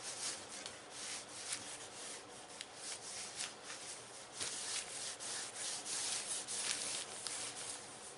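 Cloth rag scrubbing over a textured plastic motorcycle panel with a vinyl-grain pattern, in quick repeated rubbing strokes that grow louder past the middle. The part is being wiped clean of wax and grease before painting.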